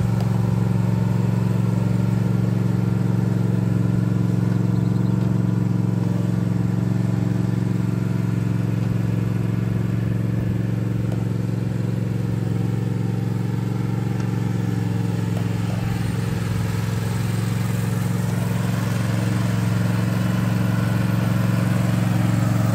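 Toro TimeCutter zero-turn mower's 22.5 hp Toro engine running steadily as the mower drives across the lawn.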